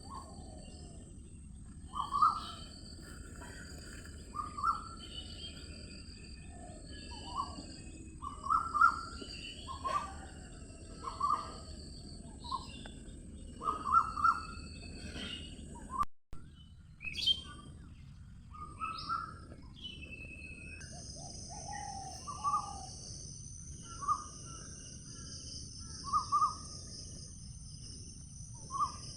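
Birds calling and chirping: short calls repeating every second or two over a steady high hiss, with a brief dropout about 16 seconds in.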